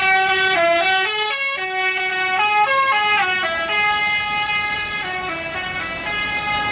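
Indonesian tour bus's telolet horn, a multi-tone musical horn playing a quick melody of stepped notes, each held about half a second, with a brief break about a second and a half in. It cuts off abruptly near the end.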